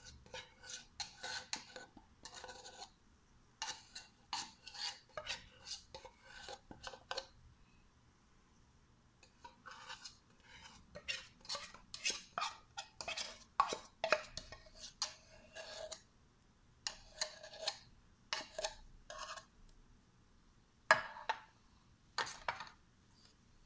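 A utensil scraping and clinking against the inside of a metal milk can in short, irregular strokes, scraping out the last of the milk, with two pauses of a second or two.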